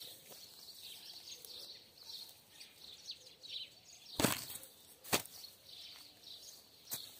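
Homemade chain-handled hammer smashing a watermelon on a tree stump: two sharp hits about a second apart, a little over four seconds in, with a smaller knock near the end. Birds chirp in the background throughout.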